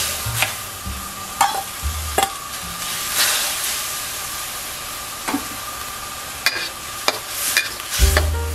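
Glass noodles going into boiling sauce in a wok and being stirred, with a steady sizzle and bubbling, and sharp clicks of a metal spatula against the wok. Background music with low notes comes and goes under it.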